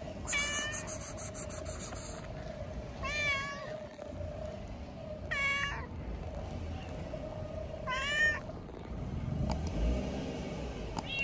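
Calico cat meowing four times, a few seconds apart, each meow rising and then falling in pitch, with a short fifth meow near the end. A steady hum runs underneath.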